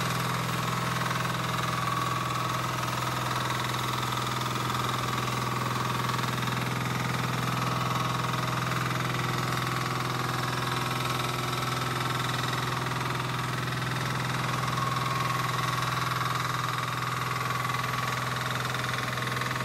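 Small engine of a crawler-tracked walk-behind orchard mower running steadily at an even speed while the machine is driven.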